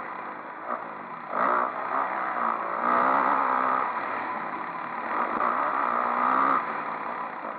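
Motocross bike's engine pulling hard as it is ridden over a dirt track, surging three times, about one and a half, three and five seconds in, and easing off near the end.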